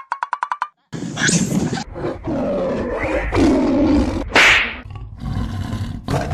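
A quick run of about seven short beeps, then, a second or so in, dinosaur roars from the fake dinosaur head: several long, rough roars and growls, loudest just past the middle.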